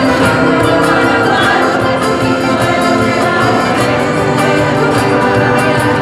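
Mixed choir singing a song in parts, accompanied by a string orchestra of violins and cellos.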